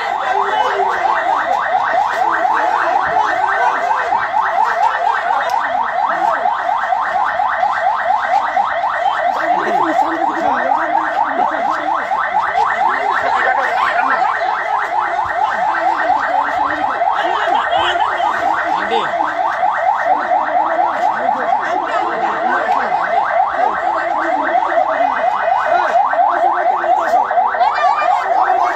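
Electronic siren of a police handheld megaphone sounding continuously, a loud tone pulsing rapidly without a break, with a crowd's voices faint beneath it.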